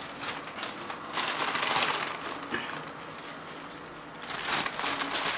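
Crinkling and rustling as baby spinach leaves are tipped into a pan of cream sauce, in two spells, one about a second in and another near the end.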